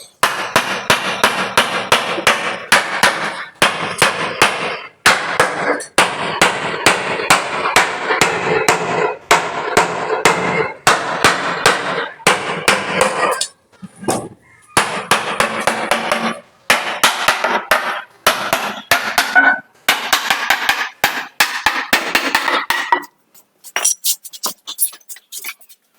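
Repeated hammer strikes on a wooden frame, several a second with short pauses, over background music.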